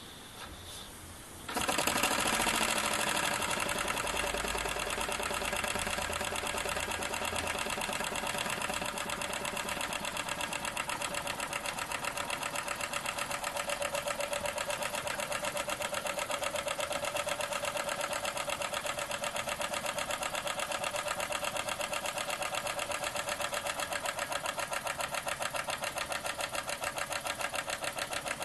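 Small single-cylinder rotary-valve model steam engine, run on compressed air, starting about a second and a half in after its flywheel is flicked over. It settles straight into a fast, steady chuffing clatter of exhaust pulses that holds even throughout.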